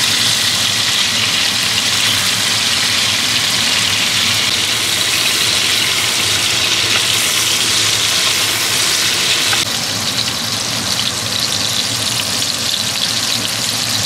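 Chunks of beef sizzling steadily as they sear in hot oil and bacon fat in a cast-iron pot, browning on the outside. The sizzle gets a little quieter about ten seconds in.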